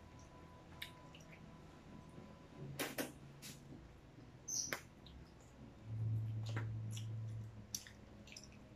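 Close-up eating sounds: scattered wet mouth clicks and smacks from chewing fried chicken and spaghetti, with light clicks of plastic forks. A low steady hum comes in twice, the louder one lasting about a second and a half a little past the middle.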